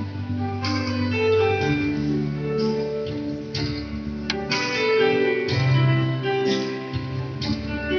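Instrumental music led by guitar, with a bass line and held chords, playing the accompaniment of a praise song.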